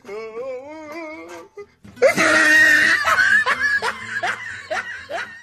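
A voice wavering up and down in pitch, then, about two seconds in, a loud burst of laughter that runs on as rhythmic ha-ha pulses about three a second and fades near the end.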